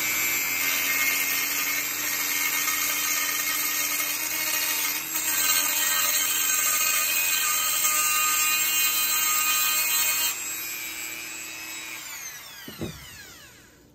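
Dremel rotary tool with a grinding-stone bit grinding down the steel head of a knife's blade pin: a steady high motor whine with a grinding rasp. About ten seconds in the stone comes off the metal and the tool is switched off, its whine falling as it spins down near the end.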